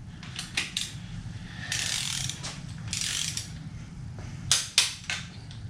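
Torque wrench ratcheting as the ARP head-stud nuts on a Toyota 7M-GTE cylinder head are tightened in the first step of the torque sequence: a few sharp clicks, two longer runs of rapid ratchet clicking about two and three seconds in, then three sharp clicks near the end.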